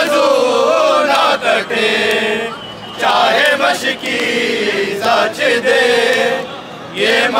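Group of men chanting a noha (mourning lament) together, in long sung phrases broken by short pauses.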